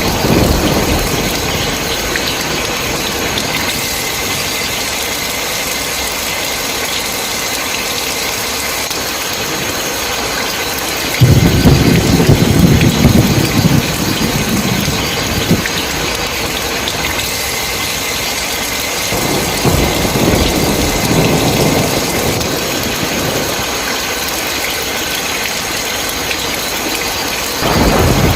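Steady heavy rain with thunder: a loud low rumble breaks in about eleven seconds in and lasts a few seconds, fainter rolls follow later, and another rumble begins near the end.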